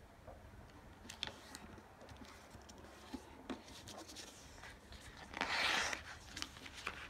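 A sheet of paper being folded by hand into a paper airplane: fingers rubbing and pressing along the creases with small taps and crinkles, then a louder rustle of the sheet about five and a half seconds in as it is lifted and turned.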